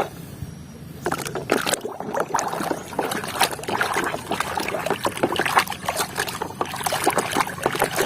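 Water trickling and splashing as a muddy toy is washed, starting about a second in, with many small irregular spatters.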